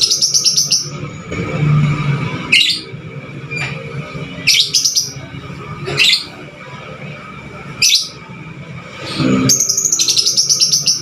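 Lovebird of the 'fighter' type calling: rapid strings of shrill, high chirps near the start and again near the end, with single sharp calls every couple of seconds between. A low steady hum runs underneath.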